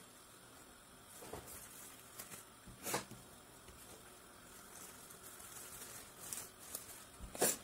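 Faint rustling of leafy ficus cuttings being handled and arranged in a glass of water, with a few short soft knocks, the loudest just before the end.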